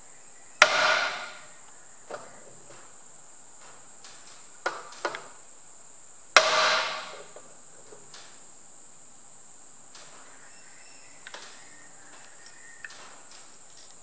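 Cast-iron Perkins engine oil pump body bumped hard against a metal surface to free the relief-valve plunger: two sharp metallic knocks with a short ring, one just after the start and one about halfway, with lighter taps and clicks between and after.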